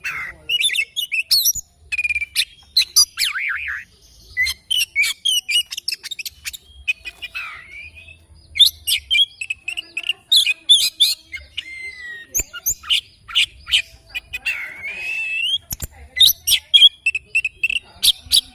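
Oriental magpie-robin (kacer) singing: a long, varied run of quick chirps, trills and whistled glides, broken by brief pauses.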